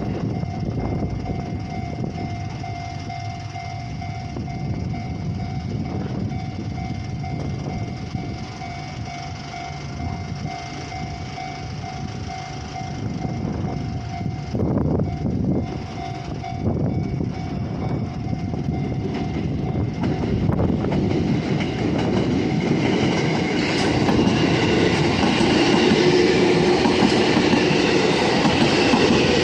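JR Tokaido Line electric commuter train running through a level crossing, its wheels clacking over the rail joints. For the first half a level-crossing warning bell rings on one steady pitch, then stops. The train noise grows louder and brighter towards the end.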